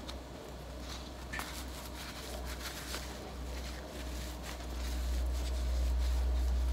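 Gloved hand and a small plastic pot scooping and rustling loose potting soil in a plastic tub, with a few faint taps and rustles. A steady low hum runs underneath and grows louder in the second half.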